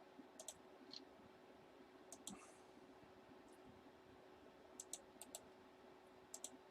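Faint computer clicks, sharp and short, coming in small clusters of two to four every second or two, over a faint steady hum.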